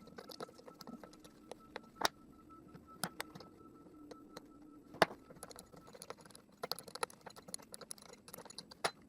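Small metal clicks and taps of an open-end wrench working the knife-holder nuts on a handheld power planer's cutter head, with a few sharper clinks about two, three and five seconds in.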